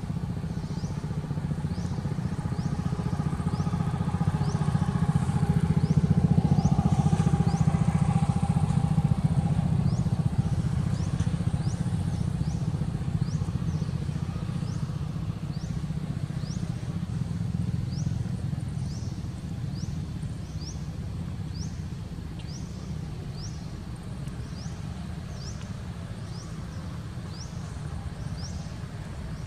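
Low engine rumble of a passing motor vehicle, swelling to its loudest about six to eight seconds in and then slowly fading. A short, high rising chirp repeats about once a second.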